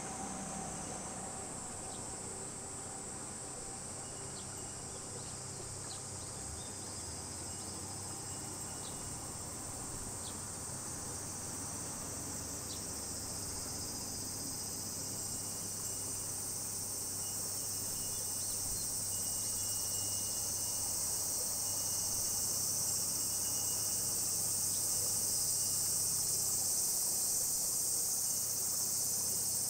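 A steady, high insect chorus buzzing from the trees along the water, growing louder over the second half.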